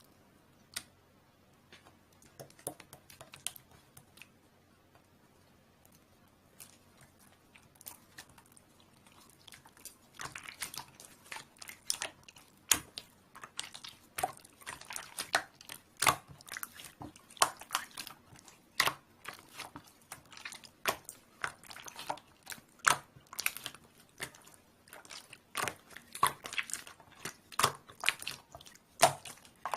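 Slime being squeezed and pressed by hand, giving sharp wet clicks and pops of trapped air. Only a few pops at first, then frequent and louder from about ten seconds in.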